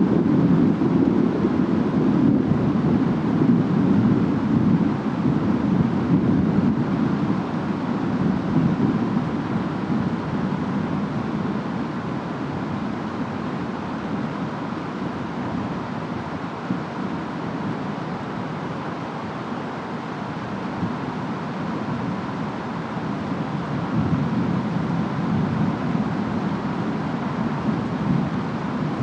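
Storm ambience of steady rain and wind: an even noise with a deeper low swell that builds over the first few seconds, eases off, and rises again near the end.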